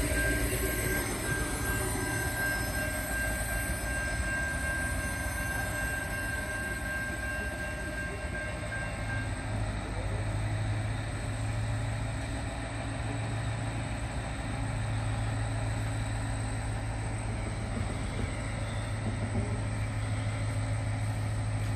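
Adelaide 3000-class diesel railcars running at the platform with a steady low engine drone. A thin high whine rides over it and fades out about nine seconds in.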